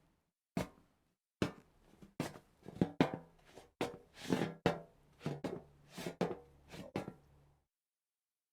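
Footsteps on a hollow metal surface: irregular heel-and-toe clanks, some in quick pairs, each setting off a low ringing hum in the metal. The steps stop about a second before the end.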